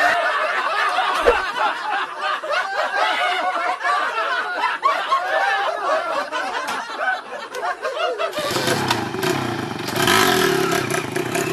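A person snickering and laughing in wavering bursts for about eight seconds. Then a motorcycle engine starts up and runs loudly.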